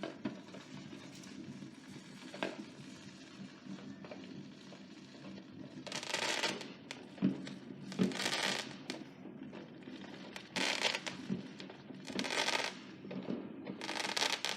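Fireworks: a few faint pops, then from about six seconds in, five short crackling bursts roughly two seconds apart.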